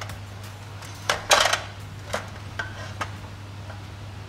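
Metal clatter as the finned cylinder block of a Suzuki Satria FU engine is worked off its studs over a steel basin. A cluster of clanks comes about a second in, followed by a few lighter single knocks.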